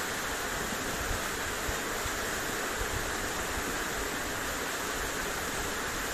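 Waterfall pouring into a shallow rocky pool: a steady, even rush of falling water.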